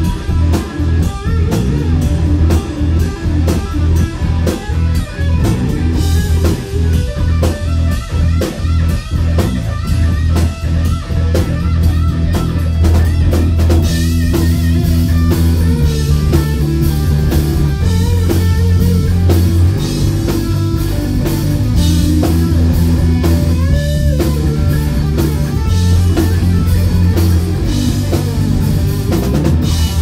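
Live rock band playing loud, with electric guitar over a steady drum-kit beat. About fourteen seconds in, the playing shifts to held chords with ringing cymbals.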